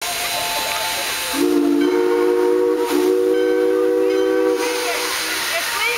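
Steam locomotive No. 40's whistle sounds a chord of several tones in two long blasts that run almost together, from about a second and a half in until past four and a half seconds: a departure signal. Steam hisses from the locomotive throughout.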